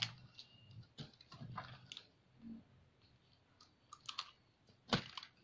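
Faint handling of plastic straws, adhesive tape and scissors: small clicks and crinkling rustles, with one sharper click near the end.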